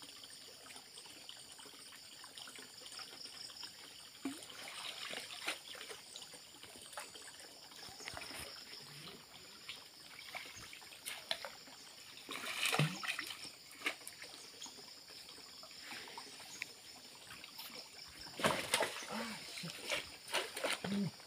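Water splashing and sloshing as a man wading waist-deep in a muddy pond sweeps through it to catch fish by hand. The biggest splashes come about twelve seconds in and again near the end, over a steady trickle of water.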